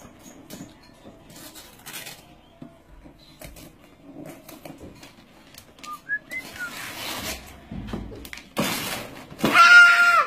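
Wrapping paper rustling and tearing as a small child unwraps a present, thickening in the second half. Near the end a loud, held high-pitched squeal from the child.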